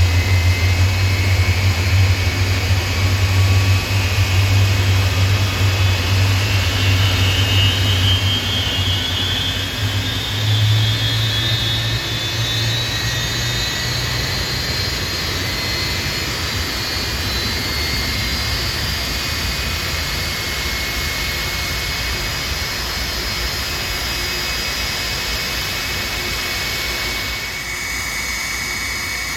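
Jet airliner engines running loud, with a deep rumble and a whine that rises in pitch over several seconds. The rumble then fades, leaving a steady jet rush, and the sound changes abruptly near the end.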